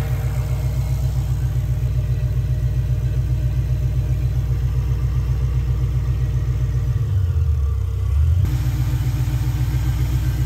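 2003 Mustang Cobra's supercharged 4.6-litre V8, warm, idling smoothly with its intake tube off, an even pulsing rumble. Its low rumble changes between about seven and eight and a half seconds in.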